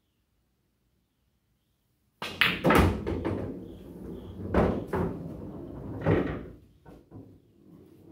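Silence for about two seconds, then a run of loud knocks and thuds with rumbling between them: pool balls struck, dropping into the pockets of a coin-operated bar-box pool table and rolling down through its ball-return inside the cabinet.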